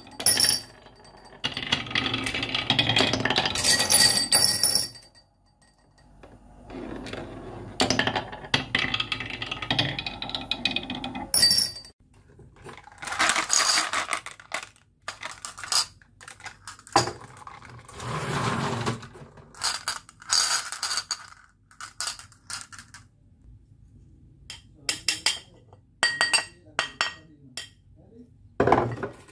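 Glass marbles rolling down a wooden marble-run track, a continuous rattle for about five seconds and again for several seconds after a short pause. Then a string of separate clinks and clatters as marbles are handled in a bowl and a plastic toy dump truck, with a few sharp knocks near the end as bowls are set down.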